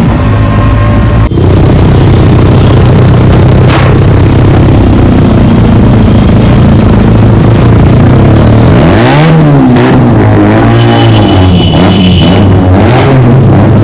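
Motorcycle engine running hard under way, a steady loud drone with a swing in revs about nine seconds in.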